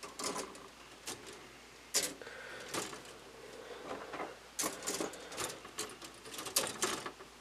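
Plastic model-kit runners clattering and scraping against each other as they are shuffled through by hand: a scatter of light plastic clicks, busier in the second half.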